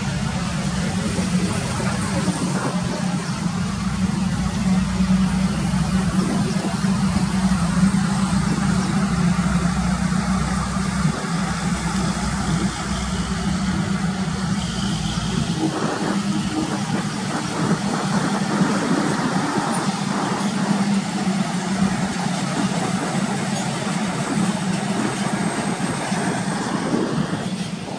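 Highway traffic: heavy lorries driving past, a steady engine drone with road noise. A deeper rumble underneath drops away about halfway through.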